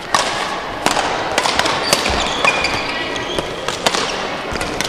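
Badminton play on an indoor court: a run of sharp smacks of rackets striking the shuttlecock, mixed with footfalls and short shoe squeaks on the court floor, over a steady background of hall noise.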